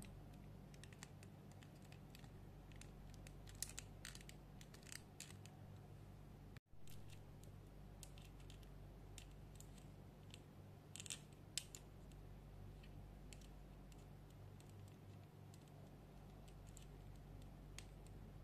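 Faint scattered clicks and ticks of a plastic S.H.Figuarts action figure's joints being bent and posed by hand, clustered around four seconds in and again around eleven seconds, over a low steady hum.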